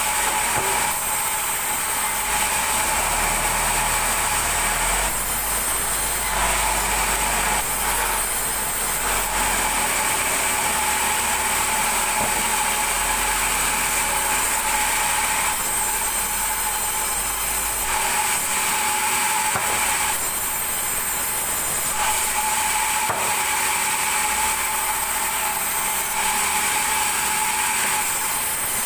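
Large vertical band saw running with a steady high whine as its blade cuts lengthwise through wooden planks, which are being resawn into pallet stock. The noise shifts in texture every few seconds.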